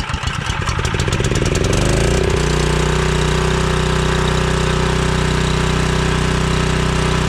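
Portable generator's Honda engine catching on a recoil pull-start: its firing quickens over about two seconds, then it settles into steady running.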